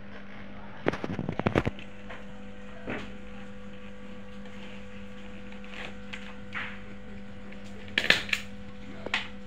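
Stiff card lantern panels and plastic wrapping being handled: two short bursts of rustling and clicks, about a second in and again near the end, over a steady low hum.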